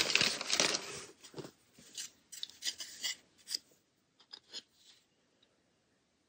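Newspaper packing paper crinkling as it is pulled out of a cardboard box, fading over the first second or so, then a handful of small clicks and rustles as a miniature plastic sun umbrella is handled and opened.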